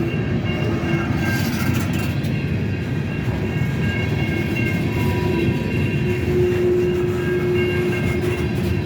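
Cars of a Union Pacific coal train, apparently empty, rolling steadily past: a continuous rumble of wheels on the rails, with faint, high, steady tones over it.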